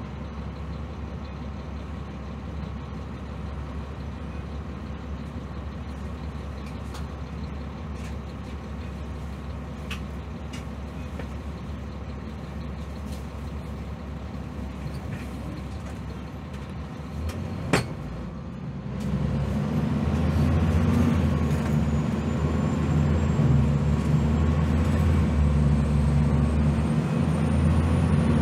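Cabin sound of a 2001 Gillig Phantom transit bus at freeway speed: its Cummins ISM diesel and road noise run steadily. About two-thirds of the way in there is one sharp click. Then the engine noise grows louder, and a thin high whine rises slowly in pitch.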